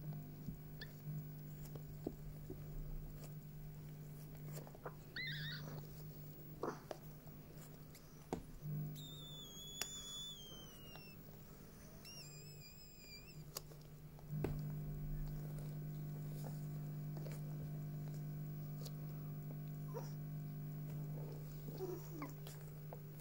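A few short, high-pitched squeaky whimpers from chihuahuas during whelping, wavering and falling in pitch, about five, nine and twelve seconds in, with soft handling clicks and a steady low hum that grows louder about halfway through.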